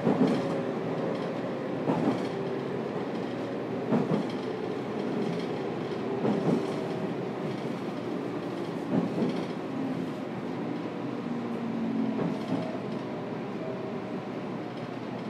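Electric train running, heard inside the JR Kyushu 813 series motor car. The motor whine slowly falls in pitch as the train slows. The wheels clack over rail joints every two to three seconds, the clacks coming further apart.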